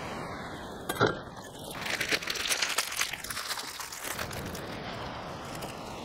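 Plastic instant-noodle packet being torn open and crinkled, with a sharp click about a second in and crackly rustling after, over a steady hiss.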